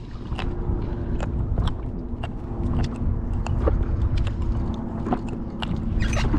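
Irregular small clicks and taps of a fish being handled and unhooked from a sabiki rig with gloved hands, over low wind rumble on the microphone and a faint steady hum.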